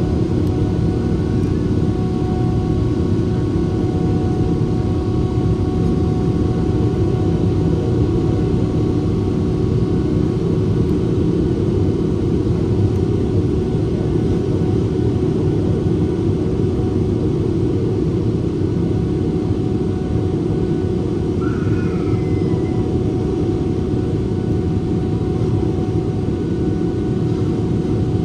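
Cabin noise of a Boeing 777-300ER in its takeoff climb: the GE90 jet engines and rushing air heard as a steady low roar, with a few faint steady whining tones above it.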